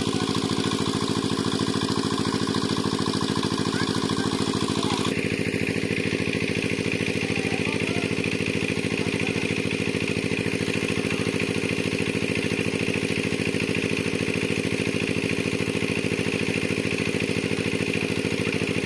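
A small engine running steadily at a constant speed. About five seconds in, a steady higher hiss joins it.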